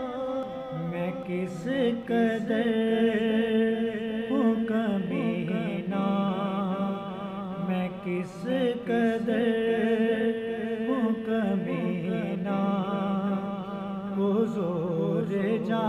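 A man's voice singing a naat, Islamic devotional song, in long held notes with wavering pitch. No instruments are heard.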